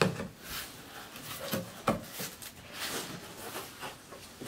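Cardboard shipping box being opened by hand: flaps pulled back and handled, a run of cardboard knocks and scuffs, the sharpest one about two seconds in.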